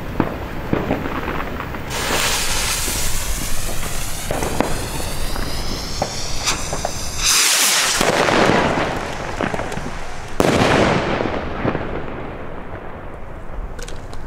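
Fireworks going off: a hissing launch from about two seconds in, two loud bursts about seven and ten seconds in that die away, and scattered crackling pops throughout.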